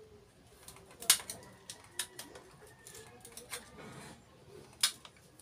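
Scattered sharp clicks and snips of a small hand cutting tool working at the dry fibrous husk of a coconut, the loudest about a second in and another near the end.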